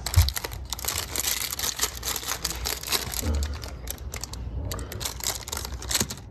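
Plastic candy wrapper crinkling as hands grab and handle it, in dense irregular crackles. There is a dull bump just after the start and another about three seconds in.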